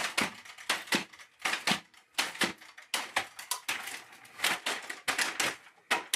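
A plastic robot dog's geared, brushless-motor-driven legs stepping in a steady rhythm: pairs of sharp clacks from the gearboxes and feet, roughly every three quarters of a second. A longer spell of clatter about three seconds in, as the robot topples onto its side.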